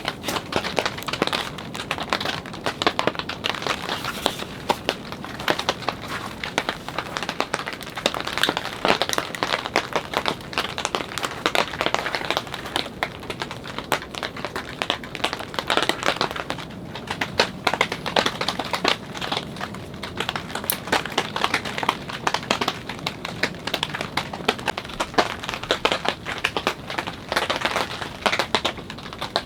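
Steady rain, a dense unbroken stream of small drop impacts, striking the fabric of a camping shelter.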